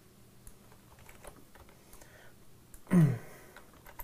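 Faint scattered clicks of a computer mouse and keyboard. About three seconds in comes a short, loud vocal sound from the editor, falling in pitch, like a throat clear or a 'hmm'.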